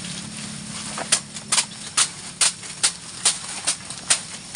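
Hand-chopping of odot grass stalks with blades: sharp knocks in a steady rhythm, a little over two a second, starting about a second in.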